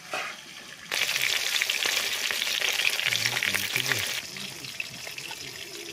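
Rohu fish steaks frying in hot oil in a kadai, a steady sizzle with fine crackling. The sizzle grows much louder about a second in and drops back about four seconds in.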